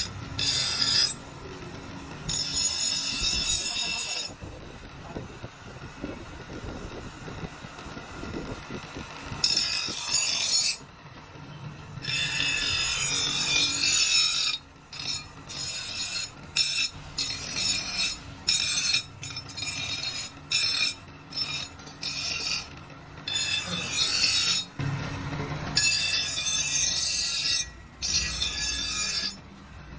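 Hand file rasping across the steel cleaver blade, in long passes at first and near the end, with quicker short strokes in between.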